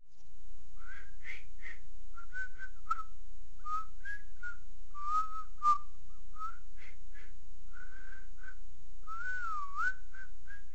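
A person whistling a tune in short separate notes, with one longer note near the end that dips and rises in pitch.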